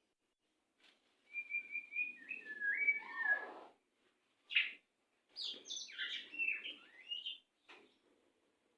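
White-rumped shama singing in short phrases: a quick run of repeated high notes that drops into falling glides, a single note, then a rapid tumble of varied notes, with brief pauses between.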